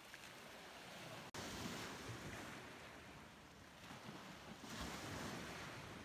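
Ocean waves washing ashore, a steady surf noise that swells twice as waves break. About a second in there is a brief dropout in the sound.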